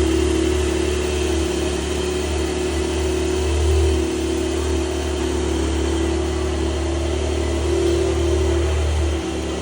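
Car engine idling steadily, a continuous low, even tone with no clear revs.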